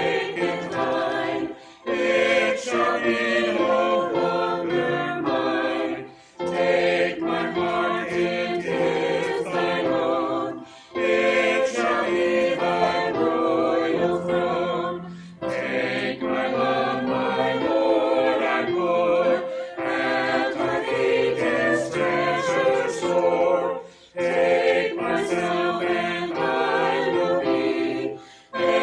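Music: a choir singing in several parts, in phrases broken by short pauses every four or five seconds.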